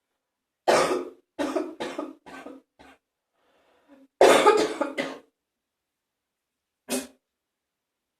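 A person's wet, phlegmy cough: a fit of about six coughs that get weaker one after another, a short breath, then a second loud burst of coughs about four seconds in, and one single cough near the end.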